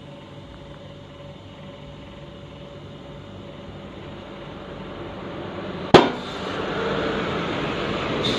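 A heavy truck passing close by, its engine and road noise growing steadily louder and then staying loud. A single sharp bang comes about six seconds in.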